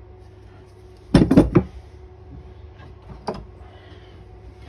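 Old metal hand tools clattering together as they are handled: a quick run of about four clinks about a second in, then a single knock a couple of seconds later.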